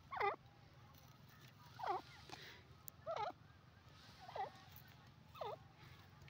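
Grey francolin calling: five short, wavering notes about a second apart, each falling quickly in pitch.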